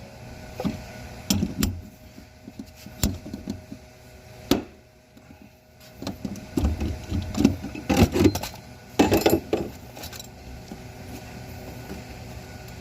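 Irregular knocks, clicks and rubbing of objects being handled, over a faint steady hum.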